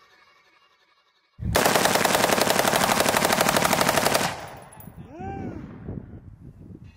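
Fully automatic AR-15-style rifle firing one continuous burst of rapid, evenly spaced shots lasting about three seconds, starting about a second and a half in, with the echo fading after it stops.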